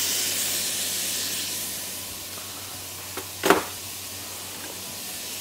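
Red-wine-marinated beef chunks searing in hot olive oil in a stainless stockpot: a steady frying hiss that dies down over the first couple of seconds as the meat seals. A brief clatter about three and a half seconds in.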